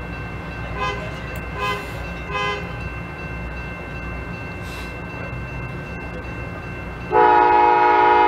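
A low rumble from an approaching train, with a few short pitched toots early on. About seven seconds in, a loud, sustained locomotive horn blast begins and holds.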